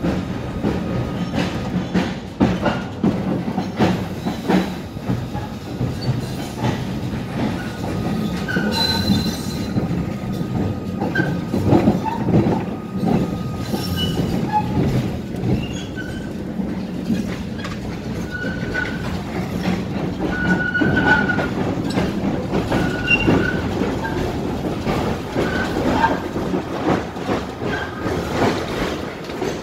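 Tatra-Yug K1M8 tram running on its line, heard from inside the passenger car: a steady rumble of wheels on rail with frequent knocks over joints. Short high squeals repeat from about a third of the way in.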